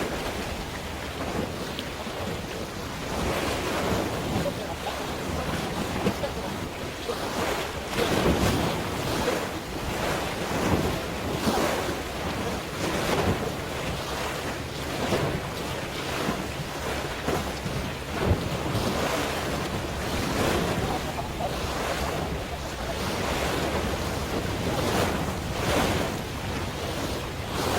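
Sea waves washing and slapping in irregular surges, with wind buffeting the microphone.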